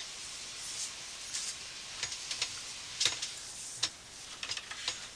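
Sewer inspection camera's push cable being fed down the drain line: a steady hiss with a scattering of sharp clicks and ticks, several close together near the end.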